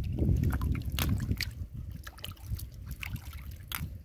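Water sloshing and splashing as hands dig through shallow muddy water for freshwater mussels. It is loudest in the first second and a half, with scattered small clicks and splashes after.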